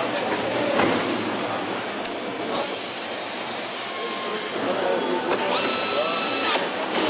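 Truck assembly-line noise: short hisses of compressed air about a second in and again for about two seconds in the middle. Near the end a pneumatic tool whines up to speed and runs for about a second, all over a steady factory din.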